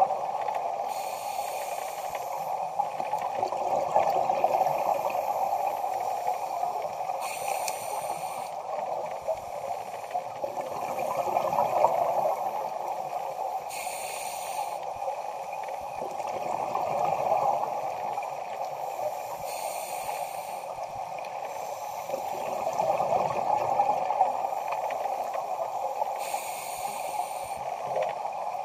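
Scuba diver breathing through a regulator underwater: a hissing inhale about every six seconds, each followed by a swelling gurgle of exhaled bubbles, over a steady watery rush.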